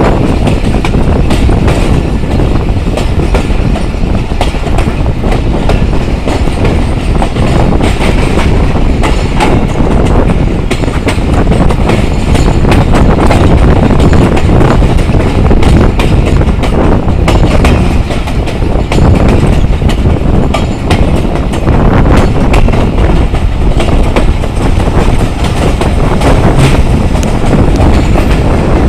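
Pakistan Railways passenger coaches rolling along the track, wheels clattering steadily over the rails with a constant rush of noise, heard at an open carriage window.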